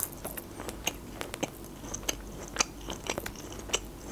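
Close-miked chewing: irregular wet mouth clicks and smacks, several a second, as a sweet dried unripe walnut is chewed with the mouth closed.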